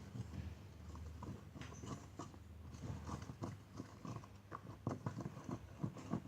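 Spoon stirring a thick, doughy slime mixture of glue, flour and cornstarch in a bowl: faint, irregular clicks and soft knocks, several a second.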